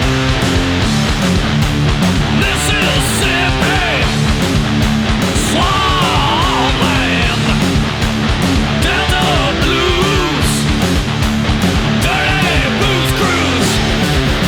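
Stoner rock band recording: heavily distorted electric guitars, bass and drums playing a heavy riff, with a higher melody line bending up and down in pitch over it.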